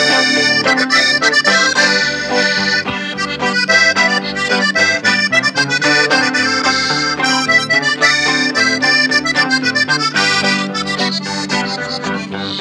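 Norteño band instrumental introduction: a button accordion plays a quick melody over a steady, pulsing electric bass line and strummed guitar.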